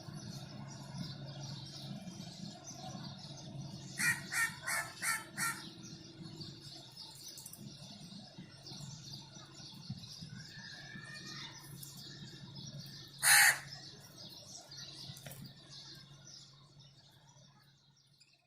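Budgerigars chattering and chirping, with a quick run of five sharp chirps about four seconds in and one loud squawk about thirteen seconds in, over a low steady hum.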